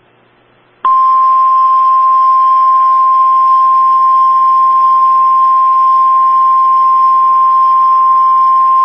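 NOAA Weather Radio 1050 Hz warning alarm tone, the single steady attention tone sent ahead of a warning message. It comes in loud about a second in, after a moment of faint hiss, and holds one unchanging pitch.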